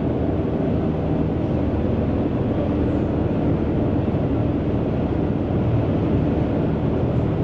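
Twin diesel engines driving waterjets at high speed, heard from inside the boat's wheelhouse as a loud, steady drone.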